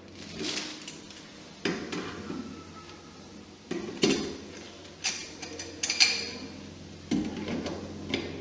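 Hard objects being handled and set down, giving about half a dozen clinks and knocks, each with a short ring.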